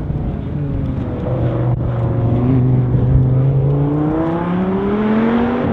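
Dodge Viper ACR's V10 engine running at steady revs, then rising in pitch as it accelerates over the last couple of seconds.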